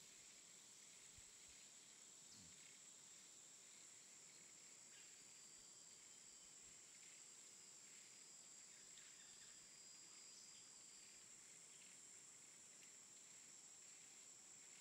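Near silence: a faint steady hiss with a thin, high-pitched whine.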